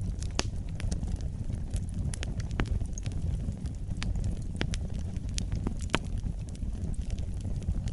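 Wood fire burning in a fireplace, a steady low rumble with frequent irregular sharp crackles and pops.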